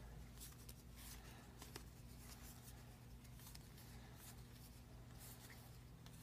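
Faint rustle and slide of trading cards being flipped through by hand, card rubbing on card in short scratches, over a low steady hum.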